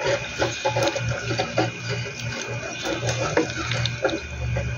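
Shrimp cooking in coconut-milk curry sauce in a pan, the sauce bubbling as a wooden spatula stirs it.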